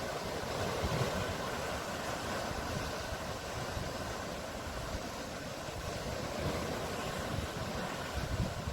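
Sea waves washing steadily, with an irregular low fluttering rumble underneath.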